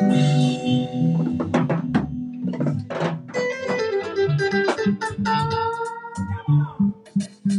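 Live band playing instrumental music: electric guitar lines to the fore over a bass line and a drum kit.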